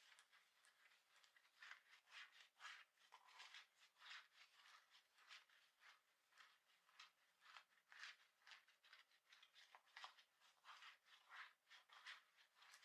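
Scratching on the fabric of worn clothing: quick, irregular, faint scratchy strokes, about two to three a second.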